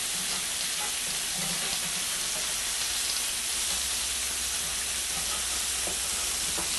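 Oiled, marinated chicken pieces sizzling steadily on a hot cast iron stovetop grill as they are turned over with tongs.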